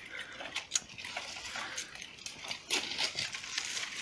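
Dry branches and twigs crackling and rustling as a boy climbs across fallen limbs, with irregular sharp cracks, a louder one about three-quarters of a second in and another near the three-second mark.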